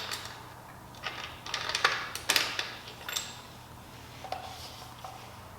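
Small metal parts and tools clinking and clicking in a few quick clusters as a chain tensioner is fitted onto the rear axle of a Honda CRF70 pit bike.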